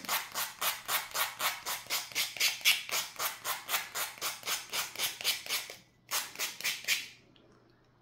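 Emery board rasping back and forth along the paper-covered edge of a small wooden birdhouse, about four quick strokes a second, sanding the Mod Podged paper down so the overhang peels away. The strokes break off briefly near six seconds, go on for another second, then stop.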